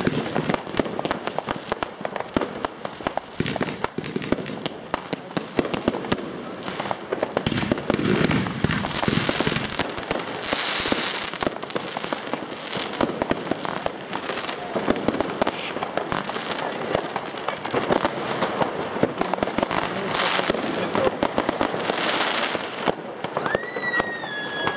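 New Year's Eve crackling fireworks: a dense, unbroken rain of rapid small crackles and pops from crackling stars. Near the end a whistling firework starts, its whistle rising sharply and then sinking slowly.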